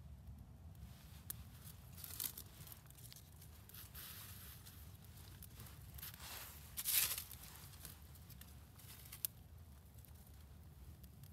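Paper towels and tinder being handled at a small, newly lit campfire: irregular rustling and tearing in short bursts. The loudest burst comes about seven seconds in, and a sharp click comes a little after nine seconds.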